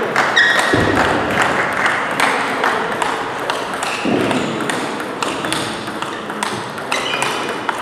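Table tennis balls clicking on tables and bats, many sharp irregular clicks throughout, with a dull thump about a second in and another about four seconds in.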